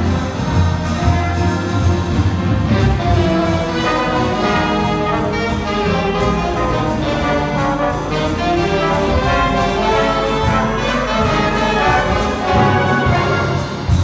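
Big band playing a jazz piece: saxophones, trombones and trumpets in full ensemble over piano and double bass, with a steady beat.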